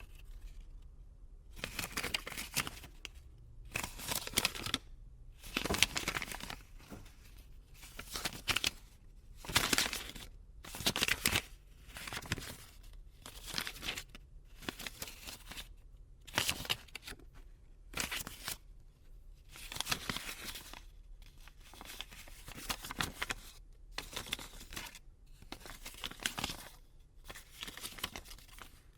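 Paper banknotes being handled, rustling and crinkling in short bursts about every second or two.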